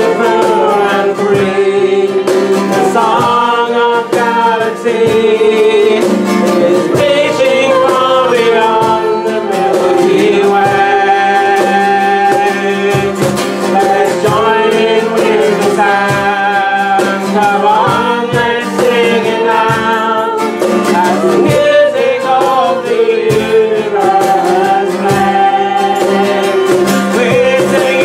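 Live worship song: a woman singing the melody to a strummed acoustic guitar.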